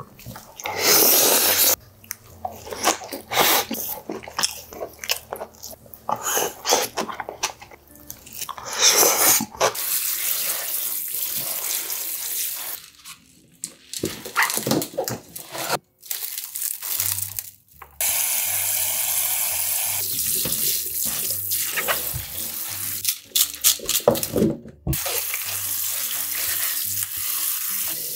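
Kitchen tap running steadily into a stainless-steel sink for long stretches, between bouts of short, sharp rustling as bunches of leafy greens are handled.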